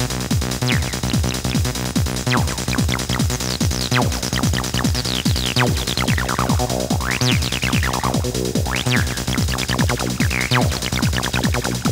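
Acid techno: a steady kick-drum beat under an acid synth line whose notes slide sharply up and down in pitch.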